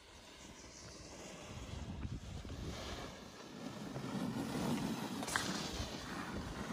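Snowboard sliding and scraping over snow, growing louder from about four seconds in as the board comes close, with wind noise on the microphone and a single sharp tick a little after five seconds.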